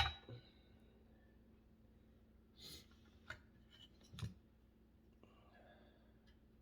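A few sharp clicks and light taps from small parts and tools being handled at an electronics repair bench, over a faint steady hum; the loudest click comes right at the start.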